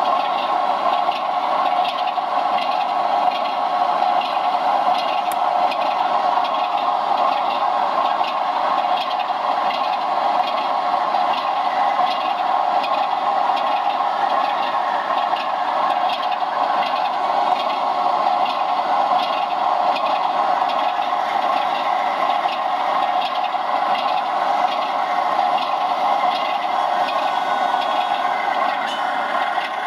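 00 gauge model train running on the layout's track: a steady mechanical hum with a constant scraping rattle and many small irregular clicks from the wheels.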